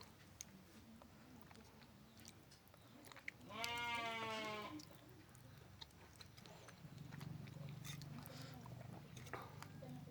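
A single bleating animal call, about a second long, near the middle. Soft chewing and mouth clicks of someone eating run around it.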